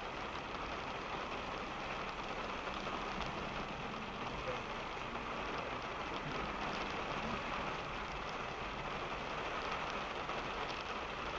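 Rain falling on a car, heard from inside the cabin: a steady hiss dotted with fine drop ticks, over a low steady rumble from the car driving.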